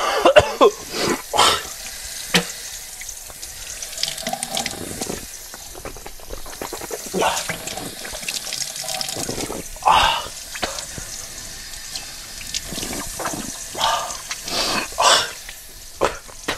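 Kitchen faucet running steadily into a pot in the sink, with a person's short loud breaths and mouth sounds now and then as he leans over the tap, his mouth burning from a very hot chili chip.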